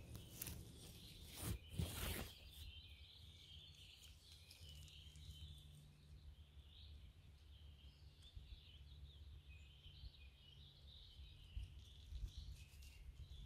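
Mostly near silence: a couple of rustles and knocks from hands handling the mushrooms and moss in the first two seconds or so, then only faint high-pitched chirping in the background.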